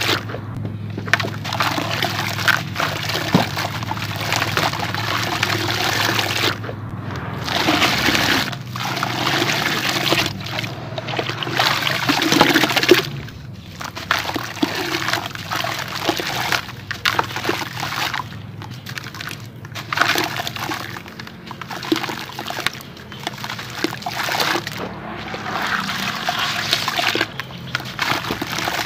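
Sand-cement lumps crumbled by hand into a bucket of water: gritty crumbling with grains and small pieces pouring and splashing into the water. It comes in repeated handfuls, with brief pauses between them.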